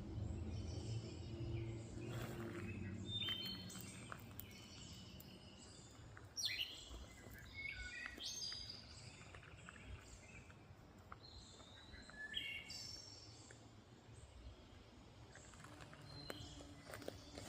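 Several small birds chirping and calling in short, high notes and quick falling slurs, scattered throughout. A low steady hum underneath fades out over the first few seconds.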